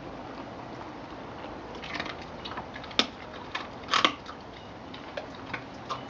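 A collie chewing raw rabbit, its teeth crunching through meat and bone in a string of sharp cracks. The loudest cracks come about three and four seconds in.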